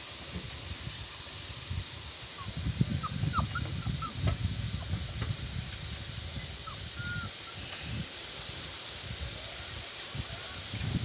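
Outdoor rural ambience: a steady high hiss under uneven low rumbling, with a few short bird chirps a few seconds in.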